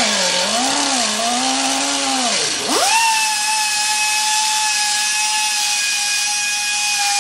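Air-powered cut-off wheel cutting through metal under the car. Its note wavers low and labouring for the first couple of seconds, drops away briefly about two and a half seconds in, then spins back up to a steady high whine.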